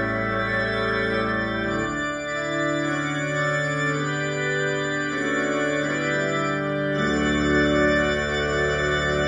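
Organ playing slow sustained chords, the bass note changing about two seconds in and again about seven seconds in.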